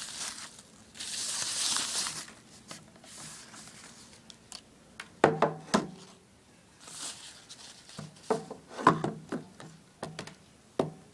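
Plastic bag crinkling as an iLive clock radio iPod dock is pulled out of it, then a series of knocks and thumps as the plastic dock is handled and set against a wooden table.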